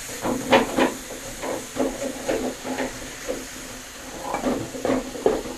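Metal spatula scraping and turning chopped banana blossom in a wok in quick, irregular strokes, about three a second, over a steady sizzle of the stir-fry.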